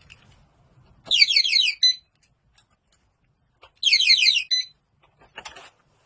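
Laptop anti-theft security alarm unit sounding two short bursts of rapid rising electronic chirps, about a second in and again near the middle, each under a second long. A few light clicks follow near the end.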